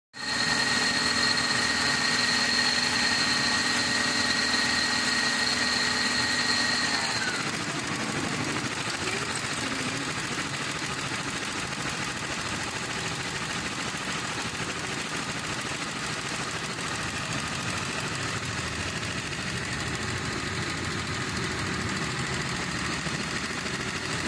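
Toyota Soluna's four-cylinder engine idling under an open hood. A high steady whine glides down in pitch and fades about seven seconds in, and the engine then runs a little quieter.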